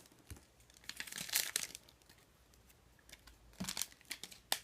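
Foil wrapper of an Upper Deck Series 1 hockey card pack crinkling and tearing as it is opened, in short rustles about a second in and again near the end, closing with a sharp click.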